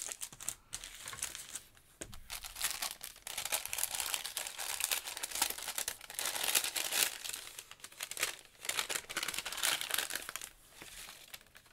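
Cellophane and paper packaging crinkling and rustling as small craft supplies are handled, in irregular bursts with brief pauses; near the end a paper bag is picked up and opened.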